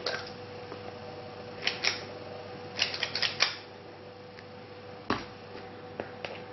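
Sharp clicks and taps from a spring-loaded metal scoop scooping thick cake batter from a bowl and releasing it into a paper liner in a metal muffin tin. There is a quick run of clicks around three seconds in, and single taps later. A faint steady hum sits underneath.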